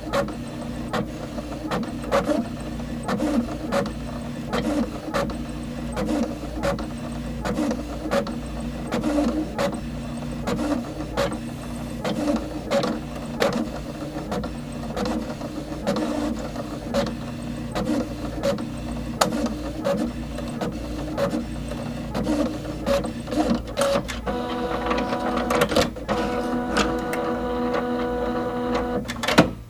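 Printer running: a steady mechanical hum with a rapid, uneven run of clicks as it feeds and prints. About five seconds before the end a steady motor whine joins in, then the machine stops abruptly with a final click.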